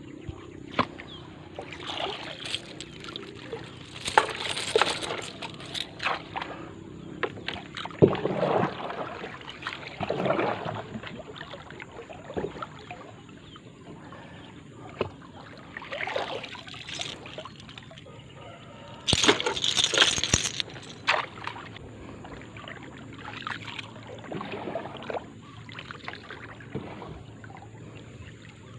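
Water sloshing and splashing against a wooden dugout canoe as it is paddled and worked among poles, in irregular bursts, with a longer, louder splash about two-thirds of the way in.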